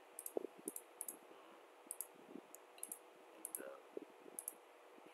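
Faint computer mouse clicks, irregular, some in quick pairs, as dimensions are placed on a sketch in CAD software.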